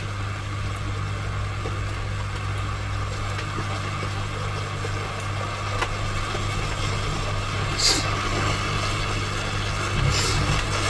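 A steady low hum with an even hiss over it, with two short hissing bursts, about eight and ten seconds in.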